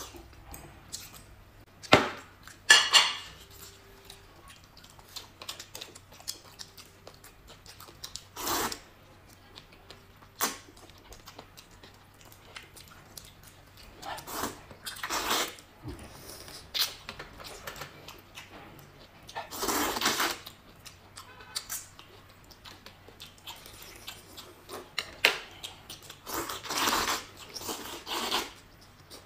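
Rice noodles being slurped from a cup in loud bursts, about six times, the longest near the middle and near the end. A few sharp clicks of chopsticks or utensils against the cup or bowl come in between.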